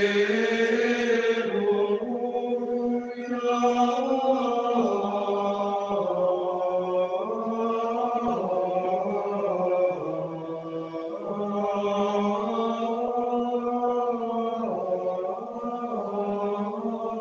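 Chanted singing used as outro music: a slow melody of long held notes moving in steps.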